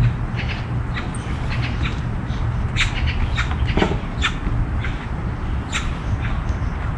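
Birds calling in short, scattered notes over a steady low rumble.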